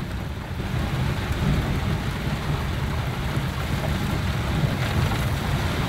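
Heavy rain drumming on the roof and windshield of a moving 4x4, heard from inside the cabin, over a steady low rumble of the vehicle on a rough dirt road.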